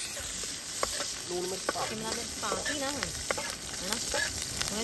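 Chopped capsicum and ginger frying in oil in a steel kadhai, sizzling steadily. A metal spoon stirring against the pan gives irregular scrapes and taps.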